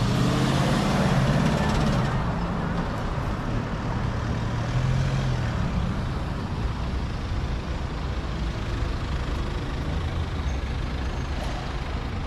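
City street traffic: motor vehicles driving past with engines running, and a loud rushing noise in the first two seconds that cuts off abruptly.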